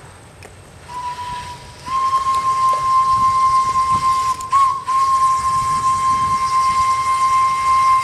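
Steam whistle of a 700 mm narrow-gauge Orenstein & Koppel steam locomotive: a short blast about a second in, then one long steady single-note blast with a brief waver near the middle.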